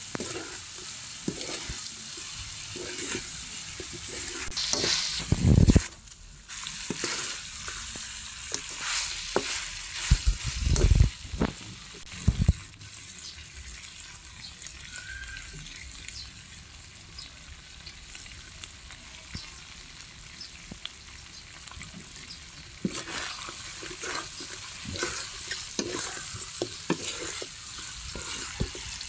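Chicken pieces stir-fried with lemongrass sizzling in a metal wok, a spatula stirring and scraping against the pan in quick clicks. A few heavy thumps come in the first half, and the middle stretch is mostly steady sizzling before the scraping picks up again near the end.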